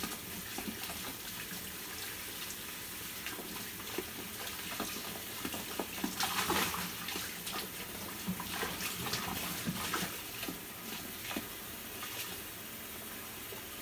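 Kitchen tap running steadily into a basin of water in a stainless steel sink while hands swish and rub bundles of paragis grass in it, with a louder splash about six and a half seconds in.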